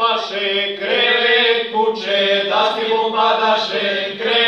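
Men's folk singing group singing a traditional Serbian village song in the old source style, chant-like, with a low note held steadily under the moving melody.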